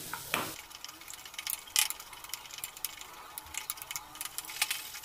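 Metal spoon scraping and clicking irregularly against a stainless steel kadhai as chopped onions and cashews are stirred and roasted in a little oil, over a faint sizzle.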